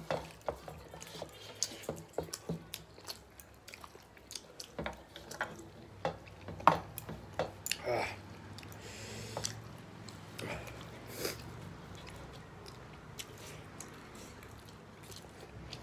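Close-up eating sounds of two people eating rice and curry with their hands from metal plates: wet chewing and lip-smacking, with scattered short smacks and clicks, the loudest about seven seconds in.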